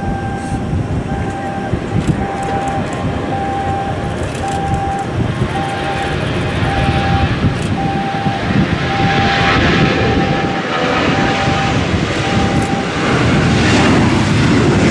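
Airbus A340 jet engines at takeoff power during the takeoff roll: a broad roar that swells and is loudest in the last few seconds as the airliner passes, a heavy aircraft slow to lift off. A short beep repeats about twice a second and stops about twelve seconds in.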